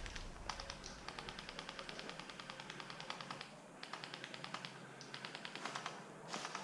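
Faint, distant airsoft guns firing on full auto: rapid, even clicking at roughly ten shots a second in several bursts, the longest about three seconds.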